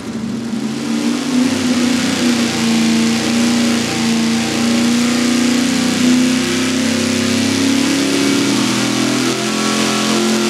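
Carbureted 372-cubic-inch small-block Chevy V8 running on an engine dyno at wide-open throttle, engine speed climbing slowly through the pull. It is fed by an undersized 20-gallon-per-hour mechanical fuel pump, and it is running lean: fuel pressure has dropped under one psi and power is falling off.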